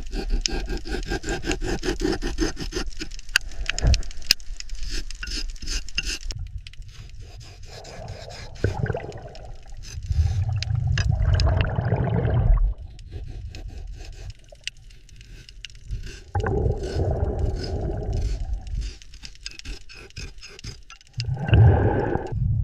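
Scraping and grinding noises: a dense, rapid crackle for about six seconds, then four low grinding swells of one to two seconds each, the last near the end.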